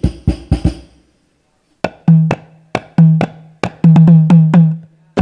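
Hadroh percussion being sound-checked: hand-struck frame drums (terbang/rebana) play a quick run of strokes. After a short break about a second in, the playing resumes with slower, deep ringing strokes.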